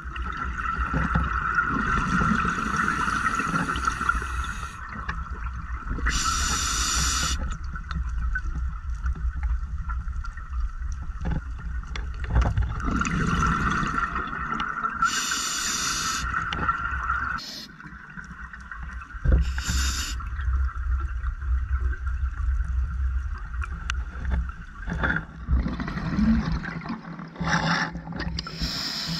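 Scuba diver breathing underwater through a regulator: a loud hissing rush of breath and bubbles every few seconds. Underneath is a steady hum over a low rumble, and the rumble eases off a little past halfway.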